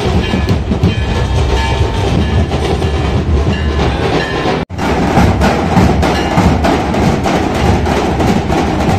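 Loud procession music with a heavy low beat and percussion. After a sudden break about halfway through, a group of dhol drums beats in a fast, even rhythm.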